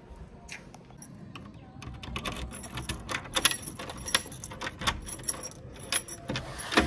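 A bunch of keys jingling and clicking as they are handled, growing busier from about two seconds in, with a sharp knock near the end.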